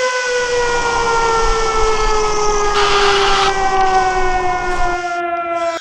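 Civil defense siren winding down, its pitch falling slowly and steadily, over a steady hiss; a short burst of noise about three seconds in. The siren cuts off at the end.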